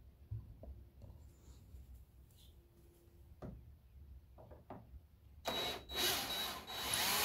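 A few light clicks and taps, then a cordless drill-driver whirring in two or three short runs near the end, its speed wavering, as it backs screws out of a TV's plastic front panel.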